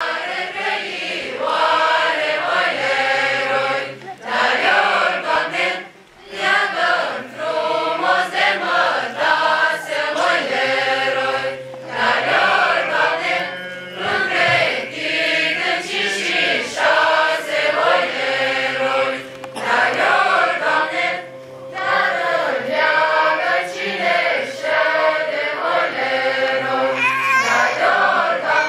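A large choir singing together, in phrases separated by short pauses.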